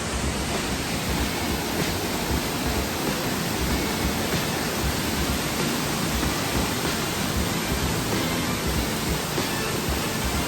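Steady rushing noise that runs without a break.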